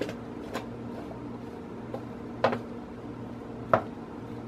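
A wooden spoon stirring diced vegetables on a metal baking sheet, giving a few sharp knocks and scrapes against the pan. The loudest come about halfway and near the end. A steady low hum runs underneath.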